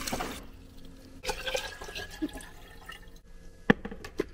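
Water from a refrigerator door dispenser running into a ceramic mug, cutting off just after the start, then light dripping and handling sounds. Two sharp clicks come near the end.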